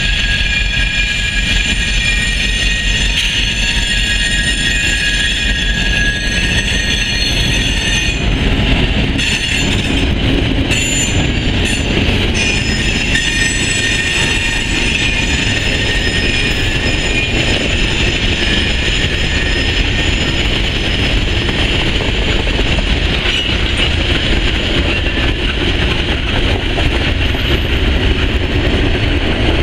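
Grand Trunk Western GP38-2 diesel locomotive, with an EMD 16-cylinder 645 two-stroke engine, running as it approaches and passes about halfway through. Freight cars then roll by with a steady rumble of wheels on rail. High-pitched wheel squeal rings throughout as the train rounds the curve.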